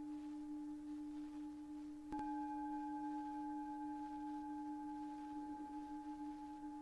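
Singing bowl ringing with a steady low hum and fainter higher overtones. About two seconds in it is struck again: a sharp hit, then the higher overtones swell and fade slowly.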